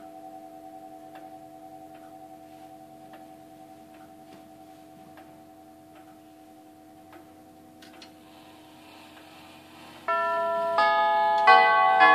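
Herschede nine-tube grandfather clock ticking steadily under a slowly fading ring of its chime tubes. About ten seconds in, the tubes start chiming a melody, loud bell-like notes struck roughly two-thirds of a second apart.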